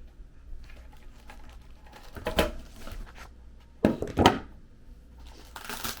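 Tool kit contents being handled in a fabric carrying case: a few separate knocks and clunks around the middle, then a short rasping rustle near the end.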